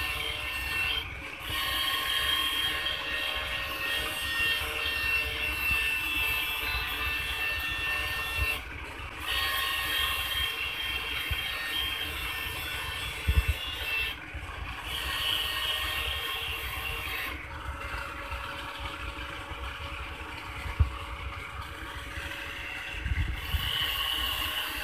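Handheld electric angle grinder running with its disc grinding the steel edge of a sickle blade: a steady high whine with grinding hiss, reshaping a blunt, over-thick edge. The grinding drops away briefly four times as the disc leaves the blade.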